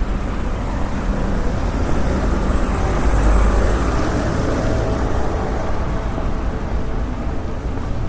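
City street ambience: a steady low rumble of traffic that swells as a vehicle passes about three seconds in, then settles back.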